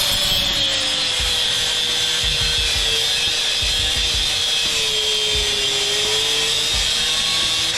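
Handheld electric power tool running continuously on a stubborn fastener in an aluminum shower-door frame, its motor pitch wavering slightly under load.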